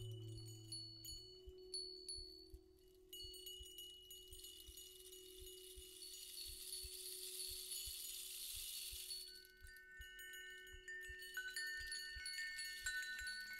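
Ambient sound-installation music: soft chime-like tones ringing over a low steady drone, with faint ticks and a hiss that swells and fades in the middle.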